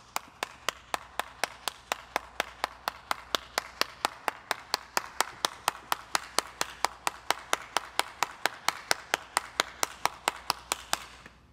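A single person clapping hands in a steady, even rhythm, about three claps a second, stopping shortly before the end.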